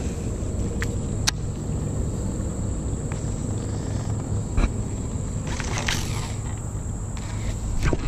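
A steady low rumble with a thin, high, insect-like drone over it, and a few light clicks from a baitcasting fishing reel being worked.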